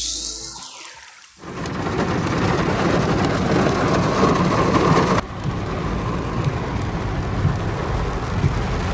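Heavy rain pouring in a windy downpour: a steady, dense noise that sets in about a second and a half in and changes abruptly about five seconds in.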